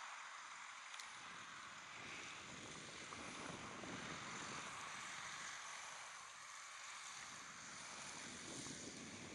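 Faint, steady running of a McCormick tractor's engine at a slurry-pumping line, with gusts of wind rumbling on the microphone from about a second in.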